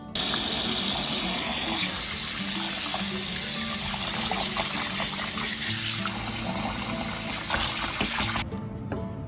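Kitchen tap running full into the sink, then turned off abruptly about eight seconds in.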